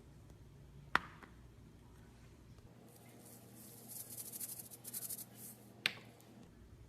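Slime being worked by hand: two sharp pops, about a second in and again near the end, with a few seconds of fine crackling between them.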